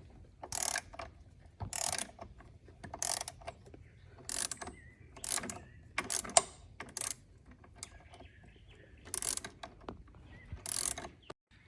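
Hand ratchet wrench being worked on a bolt or nut in short bursts of clicking strokes, about once a second with uneven pauses.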